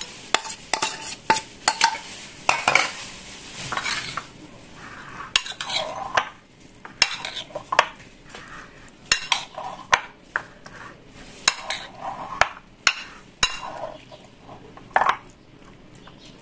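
Metal spoon stirring tuna, diced potato, green pepper and onion in a ceramic bowl: irregular clinks and scrapes of the spoon against the bowl over soft swishing of the food.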